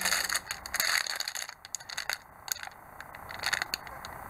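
Grey plastic model-kit sprues clicking against each other and a clear plastic bag crackling as they are handled. The clicks come thick and fast for about the first second, then scatter into sparser crackles.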